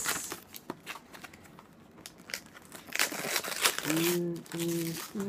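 Wrapping paper crinkling and tearing as a gift is unwrapped, with a louder burst of rustling and ripping about three seconds in. Near the end a man's voice makes two short, steady notes.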